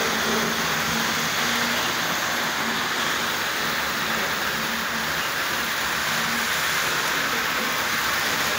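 Vintage Tri-ang OO-gauge model trains running round the layout: a steady rattle and whir of small wheels on the rails and the locomotive motors, with a low hum that comes and goes.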